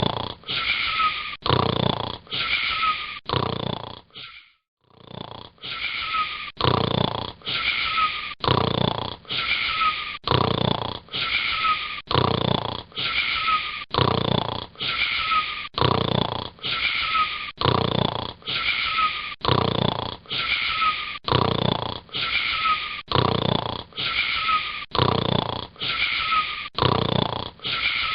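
A boy snoring in a quick, even rhythm, a little faster than one snore a second, each snore with a wheezy edge. There is one short break about four seconds in.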